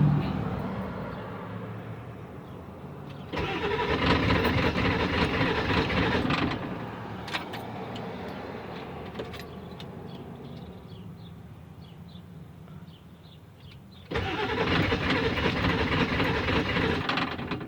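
1997 Ford F250's 7.3 diesel being cranked on the starter in two bouts of about three seconds each, cut in abruptly about three seconds in and again near the end, without catching and running. It is a no-start despite a new fuel filter and a spray into the intake; the owner guesses the fuel pump but is not sure.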